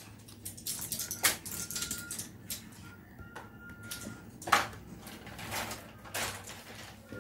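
A scattered series of light clicks and taps with soft rubbing between them, a stylus working on a tablet screen; the two sharpest taps come about a second in and midway through.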